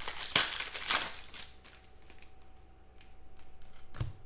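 Trading cards and a card-pack wrapper rustling and crinkling in the hands. The crinkling is loudest in the first second, then fainter handling, with a soft thump near the end.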